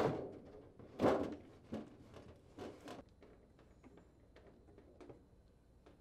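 Freezer's rear evaporator cover panel being pushed and seated into place: two dull thunks about a second apart, then a few lighter clicks and taps.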